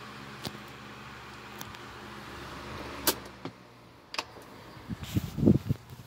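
Sanyo EF-12SP 12-inch table fan running, with a steady motor hum and an even rush of air from the blade. A few sharp clicks come through, and near the end there is a quick run of louder low knocks.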